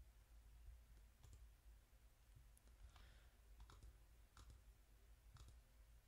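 Faint, irregular clicking from a computer mouse and keyboard in use: about eight scattered clicks over a low background hum.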